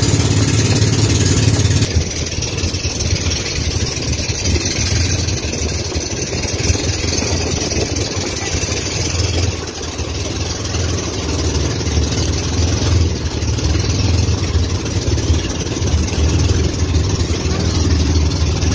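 Pumpboat's engine running steadily under way, a constant low hum, mixed with the rush of wind and water.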